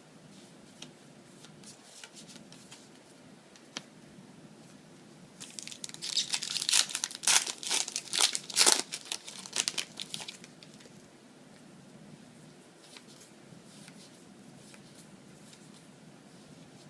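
Foil wrapper of a Yu-Gi-Oh booster pack being crinkled and torn open, a dense crackle lasting about five seconds in the middle, with faint rustles before and after.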